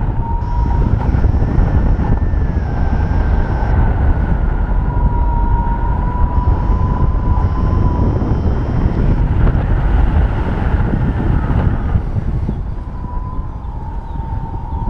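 Wind rushing over the camera microphone of a paraglider in flight, a steady low buffeting. A thin, wavering tone comes and goes above it.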